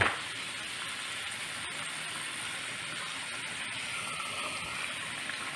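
Pork adobo cooking in a metal wok: a steady frying sizzle.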